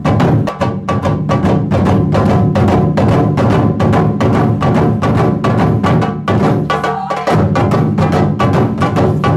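Taiko drums played by an ensemble in a fast, driving rhythm, deep drum tones under a dense stream of sharp, hard strikes.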